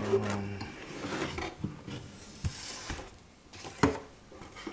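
Handling noises from a laptop stand and its cardboard packing being turned over: rubbing and scraping, with a sharp knock at the start and another near the end.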